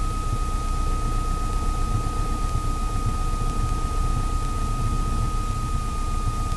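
Steady hiss and low rumble on a light aircraft's radio/intercom audio feed between transmissions, with a constant thin high-pitched whine running under it.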